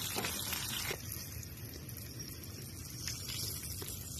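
Breaded chicken croquettes deep-frying in a pan of hot oil: a steady sizzle, with a few light clicks.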